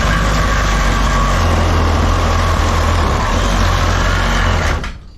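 A loud power tool cutting through the copper tubes of an aluminum-copper radiator held in a vise: a steady, even cutting noise with a constant high tone, which stops abruptly near the end.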